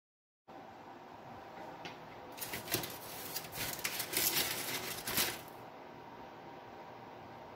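Steady background hum that cuts in half a second in, with about three seconds of crackly rustling and light clicks and knocks in the middle: handling noise as a plate is moved.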